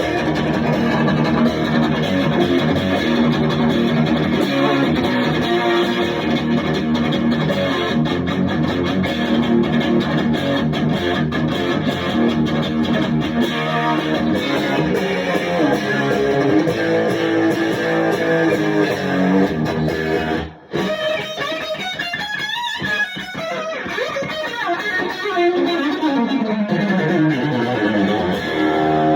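Electric guitar played through a 1978 Marshall Club and Country 4140 valve combo with new Celestion speakers, its gain at maximum, giving its heaviest overdriven tone. Chords and riffs run on, break off briefly about two-thirds of the way through, then notes slide down in pitch near the end.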